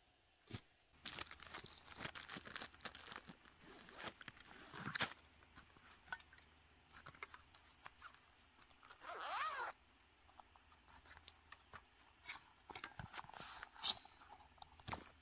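Camping gear being unpacked and handled by hand: scattered rustling, crinkling and crunching, with one longer rasping pull a little past the middle.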